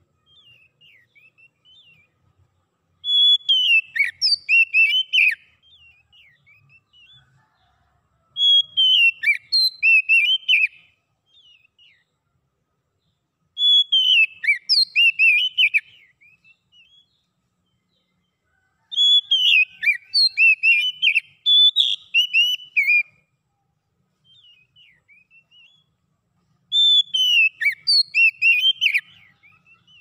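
Oriental magpie-robin singing: five loud bursts of quick, varied whistled phrases, one about every five to six seconds, with soft scattered notes between them.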